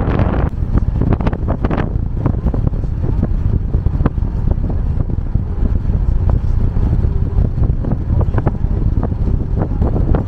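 Wind buffeting the microphone: a loud, uneven low rumble with scattered crackles.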